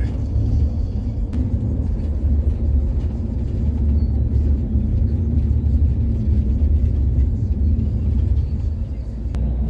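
Steady low rumble of an intercity bus on the move, heard from inside the passenger cabin: engine and road noise, with a faint click or two.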